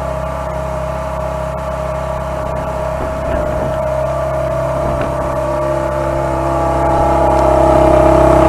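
Ferrari 430 Scuderia's 4.3-litre naturally aspirated V8 idling steadily, its note holding constant and growing louder near the end.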